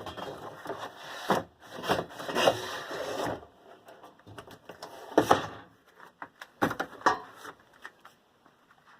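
Handling noises as a small fan motor is packed back into its box: rubbing and scraping with several sharp knocks, busiest in the first half and quieter near the end.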